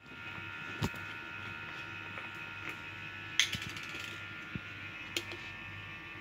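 Steady low hum with a few steady tones in it, broken by four short, sharp clicks spread through.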